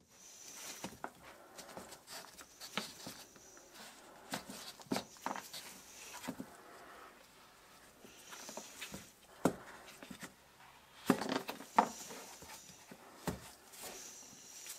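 Close handling noises from nitrile-gloved hands working a plastic mold box: scattered light taps, clicks and glove rubbing against plastic, with a cluster of louder knocks about three quarters of the way through.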